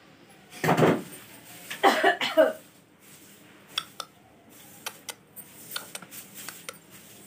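A person coughs loudly twice near the start. After that come soft scratches and light ticks of a grass broom sweeping a tiled floor.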